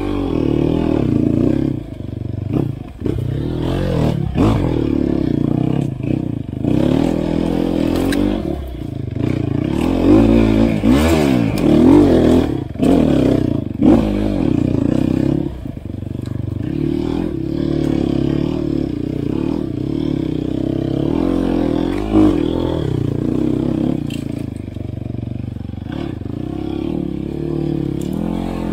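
Off-road dirt bike engine revving up and easing off again and again as it is ridden, with the hardest revving near the middle. Scattered knocks and clatter from the bike.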